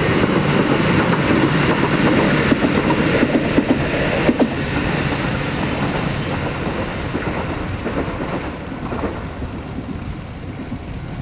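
Kotoden 1080-class electric train passing close by, its wheels clacking over the rail joints. The noise is loudest a few seconds in and then fades as the train draws away.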